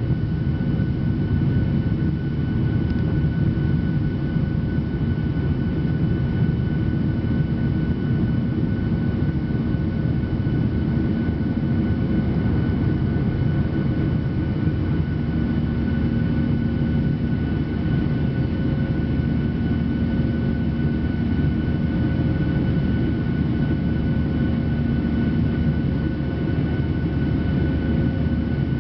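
Steady jet engine and airflow noise heard from inside an airliner cabin during the climb after takeoff, with a few faint steady hums on top and a low hum joining about halfway through.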